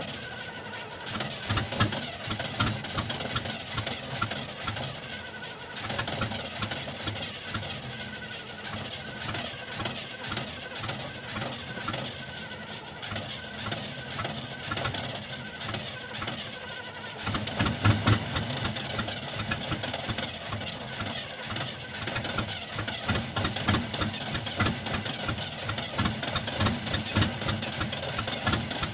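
1975 Oldsmobile engine that won't start, turning over in a steady rhythm. A little past halfway it turns louder and rougher, with heavier low pulsing and sharp irregular clicks.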